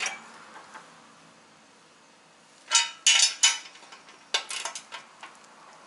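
Steel wrenches clinking and clicking against a bolt and the steel frame as the bolt is given its final tightening. A few sharp metallic clinks come about three seconds in, then a quick run of smaller clicks a second later.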